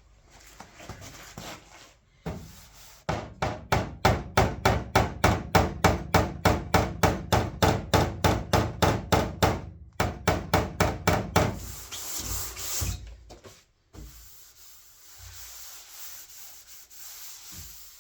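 Hand sanding with a sanding block and 180-grit paper on epoxy-primed car door steel: rapid back-and-forth rasping strokes, about three or four a second. Near the middle the strokes give way to a lighter, steadier rubbing.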